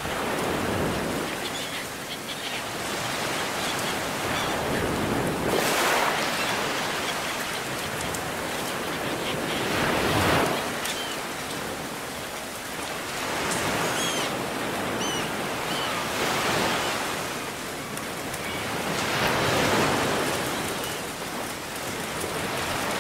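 Ocean surf: waves washing in and drawing back, swelling about every four to five seconds, with a few faint high chirps in the middle.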